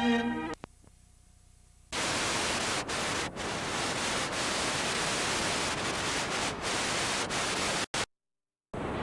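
The last note of a song cuts off, a moment of near silence follows, and about two seconds in a steady static hiss starts, the noise of a VCR playing a blank stretch of videotape. The hiss drops out completely for under a second near the end, then comes back.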